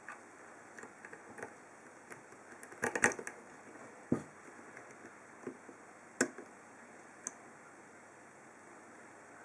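Small, irregular clicks and ticks of a hook pick working the pins inside a 50mm Lince padlock's keyway, with a cluster of louder clicks about three seconds in and single sharp clicks around four, six and seven seconds.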